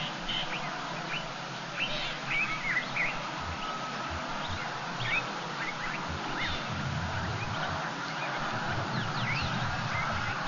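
Birds calling at a waterhole: many short, high chirps and twitters, some rising and some falling, scattered over a steady outdoor hiss.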